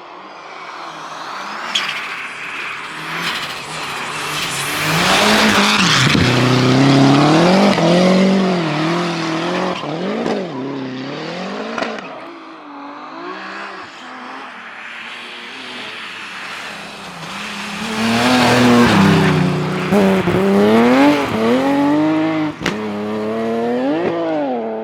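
Rally car engine at full throttle, building as it approaches and loudest about five to eight seconds in, the revs rising and dropping repeatedly. It eases off, then climbs and wavers loudly again from about eighteen seconds in.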